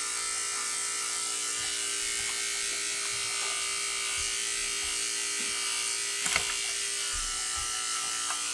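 Electric dog grooming clippers fitted with a #30 blade running with a steady buzz as they shave the hair from between a dog's foot pads.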